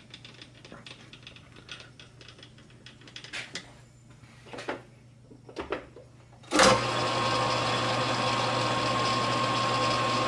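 A few light metallic clicks and knocks as the lathe carriage and tool post are moved by hand, then about two-thirds of the way in the metal lathe switches on and runs steadily, its four-jaw chuck spinning an off-centre rectangular block, with a steady hum and whine.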